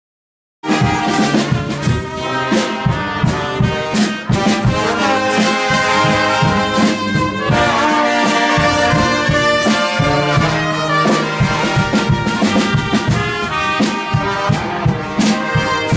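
Bavarian brass band (Blaskapelle) playing live: trumpets, a large brass horn and clarinet over a bass drum keeping a steady beat. The music starts abruptly about half a second in.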